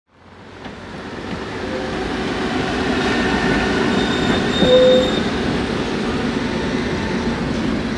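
Tram passing along street track with a steady rumble of wheels and running gear, fading in over the first couple of seconds. A short wheel squeal rings out about five seconds in.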